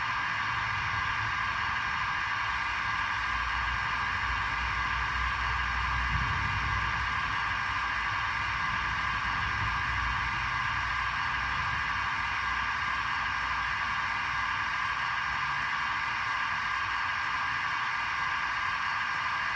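Roco EDK 750 model breakdown crane's small electric motor whirring steadily as it lowers the jib, with a low rumble for several seconds in the first half.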